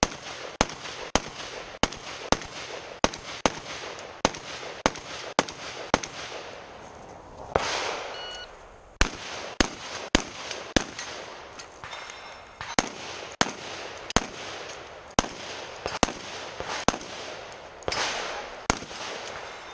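Rapid gunfire from a semi-automatic long gun: sharp shots about two a second in quick strings, with a pause of about two seconds about a third of the way in and a shorter pause near the end.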